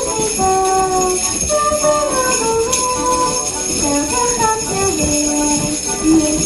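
Sleigh bells jingling steadily throughout, over instruments playing a melody in held, stepping notes.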